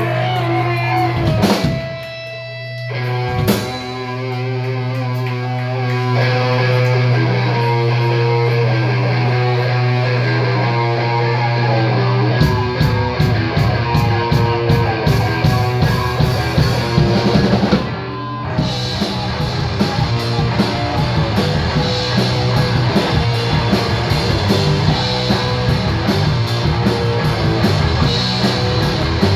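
Live rock band playing an instrumental intro: picked electric guitar notes over a low held note, then the drums and full band come in about twelve seconds in, with a short break a few seconds later before the band plays on.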